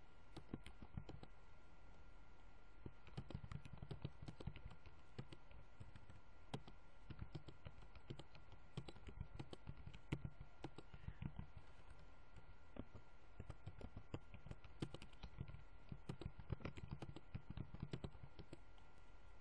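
Computer keyboard keys and mouse buttons clicking in irregular runs of taps, faint, over a steady low electrical hum.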